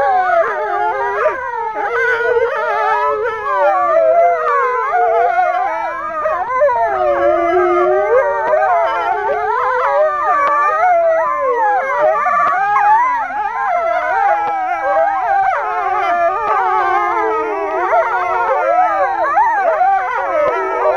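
A pack of grey wolves howling in chorus: several overlapping voices, each gliding up and down in pitch.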